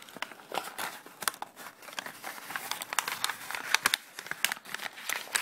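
Folded paper crinkling and rustling in irregular crackles as hands pull open the flaps of an origami boat.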